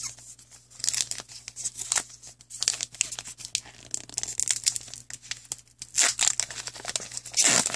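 The shiny foil wrapper of a 2015 Upper Deck CFL football card pack is crinkled and torn open by hand, making a run of irregular crackles and rips. The loudest crinkling comes near the end.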